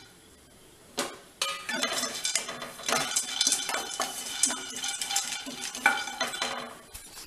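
A spoon stirring almonds and cashews in a pan with a little ghee, as they roast. Starting about a second in, there are quick scrapes and clinks against the pan, with the nuts rattling.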